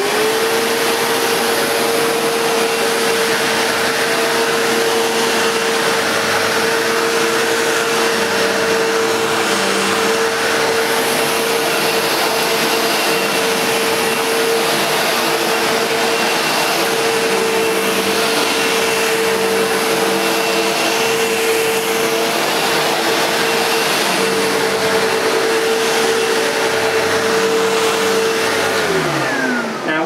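Sebo X1.1 upright vacuum cleaner, fitted with a new brushroll, switched on and running on carpet. The motor spins up to a steady high whine with airflow hiss, then winds down with a falling pitch near the end as it is switched off.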